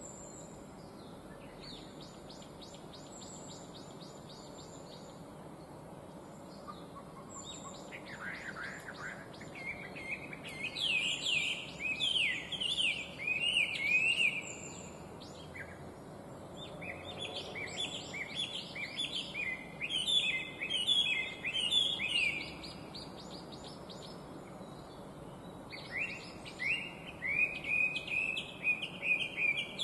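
Chinese hwamei singing: loud, rapidly varied whistled phrases in long bouts, starting about eight seconds in and breaking off briefly twice. Faint high chirps come before the song begins.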